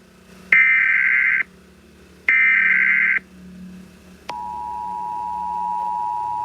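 Emergency Alert System signal: two bursts of SAME digital header data, each about a second long, then about four seconds in the steady two-tone EAS attention signal starts and holds, announcing that an alert message follows.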